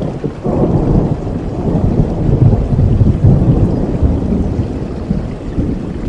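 Thunder rumbling over heavy rain. The rumble swells about half a second in and is loudest around the middle.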